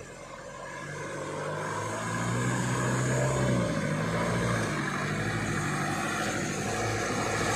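Truck engine working hard through deep mud, revs rising and falling, growing louder as the truck approaches.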